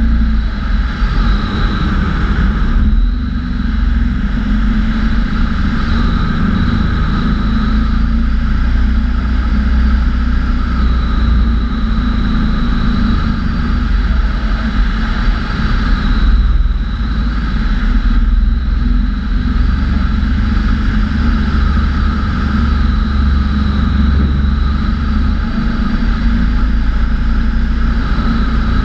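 Bautek Skycruiser microlight trike in cruise flight: its pusher-propeller engine runs steadily at an even setting, mixed with wind rushing over the wing-mounted camera.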